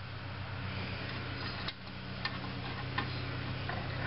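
A few sharp metallic clicks, spaced about half a second to a second apart, from brake spring pliers working against a drum-brake return spring and shoe, over a steady low hum.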